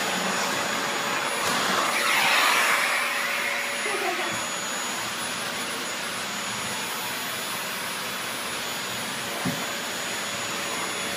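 Household vacuum cleaner running steadily, a rushing hiss with a steady motor whine. It grows louder for a couple of seconds near the start, then settles. A short knock comes near the end.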